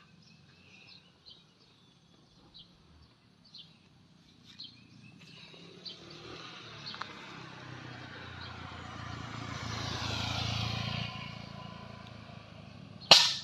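A motor vehicle passes by, its noise swelling for several seconds and then fading. Faint bird chirps come in the first few seconds.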